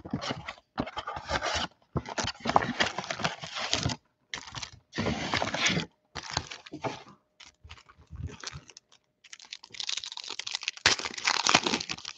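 A cardboard trading-card box being torn open and its foil card packs pulled out and handled: irregular bursts of tearing, crinkling foil and sharp clicks, with short pauses between them.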